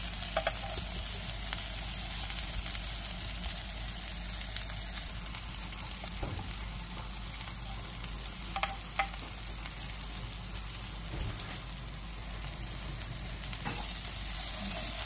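Food sizzling steadily in a hot pan, with a few light clicks of a utensil against the pan.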